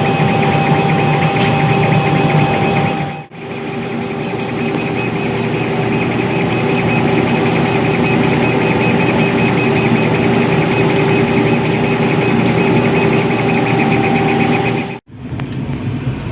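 Steady mechanical hum of a running 130 W CO2 laser cutting machine and its equipment, with several fixed tones; it breaks off briefly about three seconds in and again near the end.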